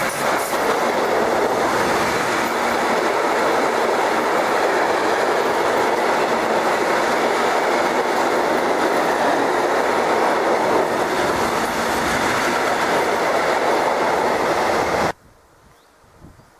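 A train passing close by on the rails, a loud steady rush of wheel and track noise with a clickety-clack. It stops abruptly about fifteen seconds in, leaving only faint background.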